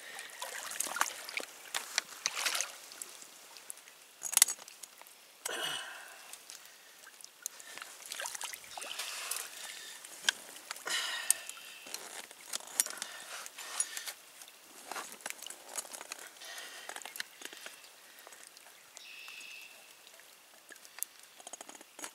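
Shallow pond water splashing and trickling as a beaver is worked out of a trap and the trap is reset, with scattered clicks and knocks from the handling; the sharpest knock comes about four seconds in.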